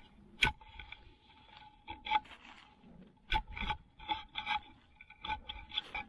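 Hand digging in forest soil and leaf litter: irregular scraping and rustling, with a couple of sharper scrapes, about half a second in and just past three seconds.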